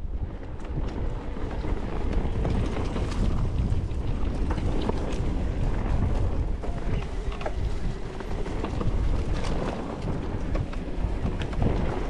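Wind buffeting the microphone over the rumble and rattle of a mountain bike rolling over a rough trail, with scattered knocks and clatters throughout.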